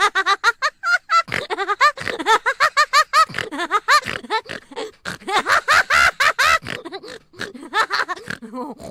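High-pitched laughter in rapid repeated bursts, several a second.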